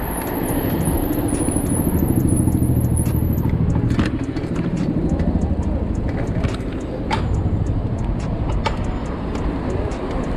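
Street traffic heard from a moving bicycle: a car engine running close by, over rolling road noise, with a few sharp knocks from the bike in the second half.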